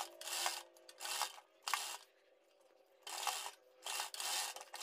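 Sewing machine stitching a pearl lace trim onto fabric in short spurts, with a pause of about a second in the middle. A faint steady hum runs underneath.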